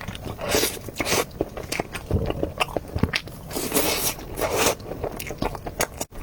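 Close-miked eating sounds: bites and chewing of a durian mille-feuille cake of durian flesh and cream, irregular wet mouth sounds, with louder clusters about a second in and again past the middle.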